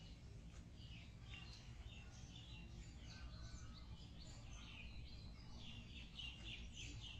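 Small birds chirping faintly, with a quick run of chirps near the end, over a low steady background rumble.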